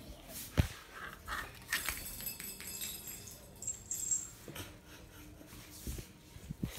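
Scattered light clicks and knocks with a thin metallic tinkle, a small cat toy being batted and rolling across a hard floor; one sharper knock comes under a second in.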